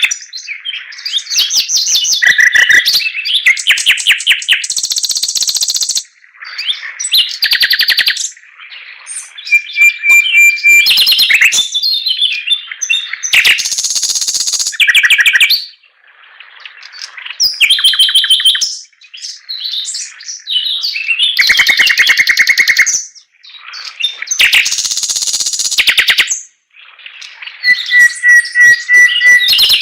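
A Chinese hwamei (họa mi) singing loudly in long, varied phrases of rapid repeated whistled notes and trills. The phrases last several seconds each and are separated by brief pauses.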